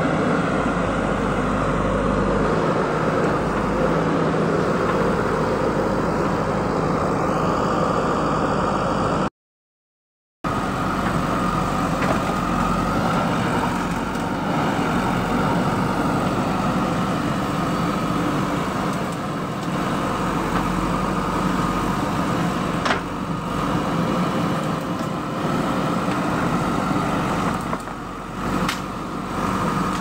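JCB backhoe loader's diesel engine running steadily as the machine works. The sound cuts out completely for about a second a third of the way in, and a few sharp cracks come in the second half.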